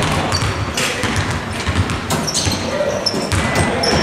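Several basketballs bouncing irregularly on a gym floor, echoing in a large sports hall, with voices in the background.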